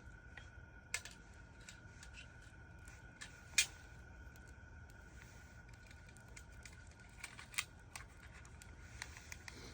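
A small burning ball of cedar bark and moss tinder crackling faintly, with scattered sharp pops, the loudest a little past three and a half seconds in.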